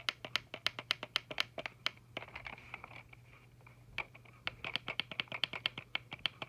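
Old Timex alarm clock's speaker giving a rapid, even clicking, about six clicks a second, over a faint steady hum and high tone; the clicking fades out for about two seconds in the middle, then resumes. The speaker is failing.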